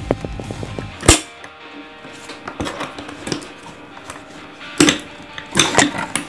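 Carabiner gate being worked by hand, snapping with sharp clicks: one loud click about a second in, then a few more near the end, over background music.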